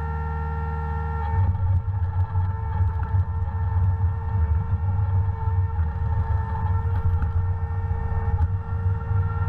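Logbullet miniforwarder's engine running, with a steady whine over a low rumble. The rumble grows louder and rougher about a second and a half in as the machine is worked.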